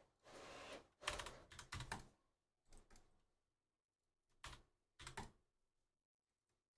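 Computer keyboard typing, quiet key clicks in short scattered bursts with pauses between them.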